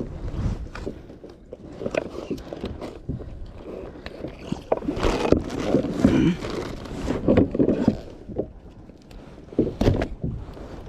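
Irregular knocks, taps and scraping, as of gear being handled.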